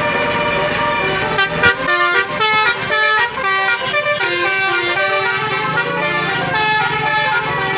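Indonesian bus basuri horn, a multi-tone musical air horn, playing a melody: horn-like notes stepping from pitch to pitch, with a quick run of short notes about one and a half to three and a half seconds in.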